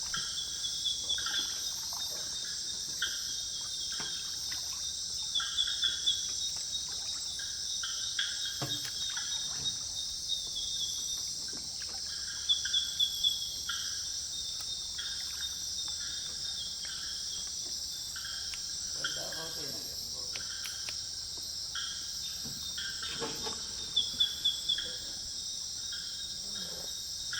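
Night insect chorus of crickets and other insects: a steady high-pitched drone with short chirps repeating over it. A few quick runs of about four loud chirps stand out.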